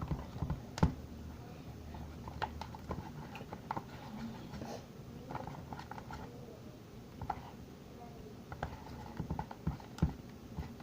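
Utensil stirring thick slime in a bowl: irregular clicks and knocks against the bowl with soft sticky sounds, sharpest about a second in and near the end. The glue-and-detergent mixture is being worked until it pulls away from the bowl.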